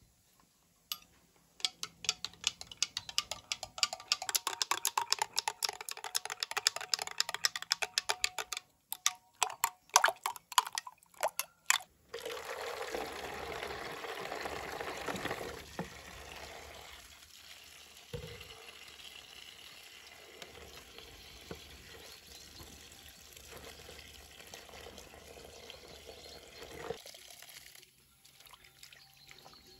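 A metal spoon stirring quickly in a container, clicking about six times a second, with a few louder separate clinks. About twelve seconds in, water runs from an outdoor tap onto greens in a plastic colander and basin, splashing loudest at first, then steadier, and stopping shortly before the end.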